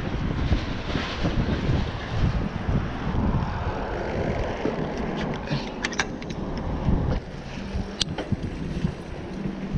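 Wind buffeting the microphone of a GoPro action camera on a moving bicycle, a steady low rumble of rushing air, with a few sharp clicks about six and eight seconds in.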